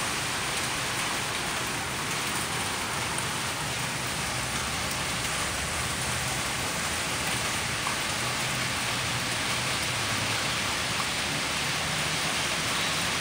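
Steady rain falling, an even unbroken hiss with no let-up.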